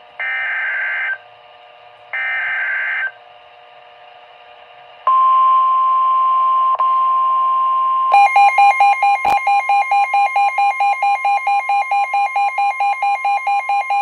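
Emergency Alert System tones introducing a tornado warning: two shrill, warbling SAME digital data bursts about a second long each, then about five seconds in the steady 1050 Hz NOAA Weather Radio warning alarm tone. About eight seconds in, a rapid pulsing electronic beep of about four beeps a second joins the steady tone, with a single click partway through.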